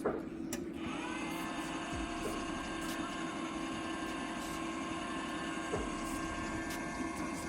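MIG welder's wire-feed motor whining steadily, pushing freshly loaded wire through the gun's liner before it reaches the tip; it starts about a second in, after a click.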